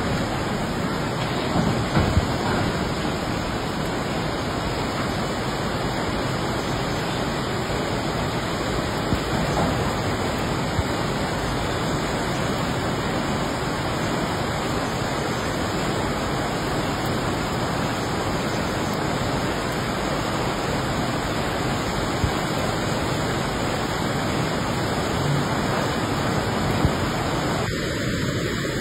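Steady rushing noise of a river in flood, with turbulent brown floodwater pouring through and under a road bridge.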